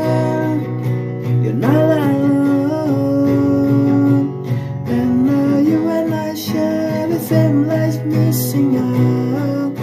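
Acoustic guitar strummed with a singing voice holding and gliding between long notes.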